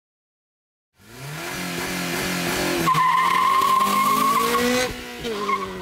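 A car engine revving up, its pitch climbing in steps, then tires squealing in a wavering high tone for a couple of seconds, with a short squeal again near the end.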